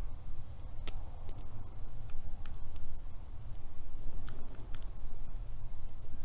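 Small, sharp metallic clicks of a lock pick working the pin stack inside a Master Lock Pro Series 7050 padlock, coming irregularly, a few at a time, over a low steady hum.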